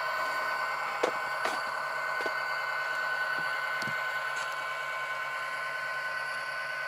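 Kato SD80MAC model locomotive's Tsunami sound decoder playing a diesel engine sound through the model's small speaker as it rolls slowly, a steady hum with a few held high tones and occasional light clicks.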